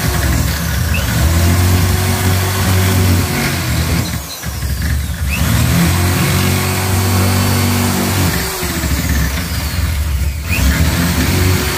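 Corded electric drill running under load as it bores holes into a wooden tabletop. The motor stops twice and spins back up each time.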